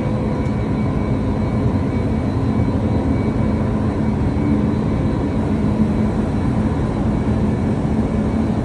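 Loud, steady din of a bulk carrier's self-unloading gear in the cargo tunnel: conveyor belts running over rollers with cargo feeding from the hoppers, carrying a constant machine hum.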